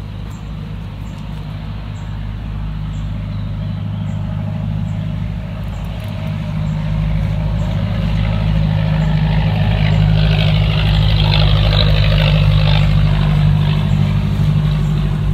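A road vehicle's engine running, a steady low hum that grows louder over the first ten seconds and then holds, with a rush of tyre noise about ten seconds in.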